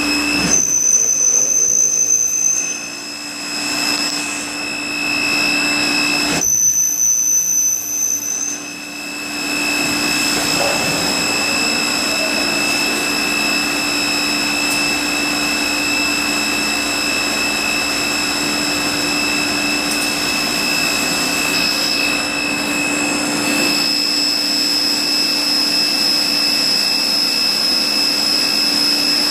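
Rüsch RDU302-600 automatic beam drilling and sawing line running: a loud, steady mechanical whine with several high fixed tones. Twice in the first ten seconds a higher whistle sounds for about two seconds.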